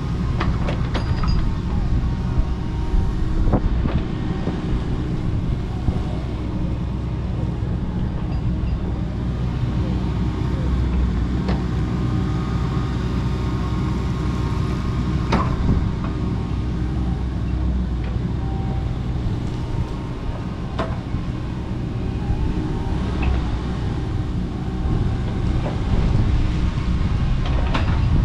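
Kobelco SK85 MSR 8-ton excavator's diesel engine running steadily under work, with a few sharp knocks and cracks scattered through.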